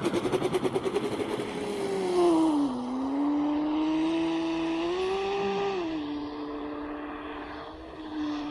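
Pro Boat Blackjack 42 RC catamaran's brushless electric motor whining at speed, with rapid pulsing in the first second or so. The pitch dips about two and a half seconds in, climbs again around five seconds and settles lower after six as the throttle changes, and the sound slowly fades as the boat runs away.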